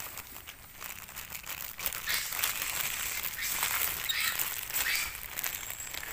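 Plastic bag crinkling and rustling in irregular bursts with many small clicks, getting louder about two seconds in, as the bag of food is handled while feeding the monkeys.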